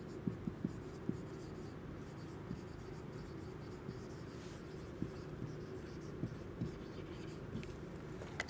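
Marker pen writing on a whiteboard: faint, irregular taps and strokes over a steady low background hum.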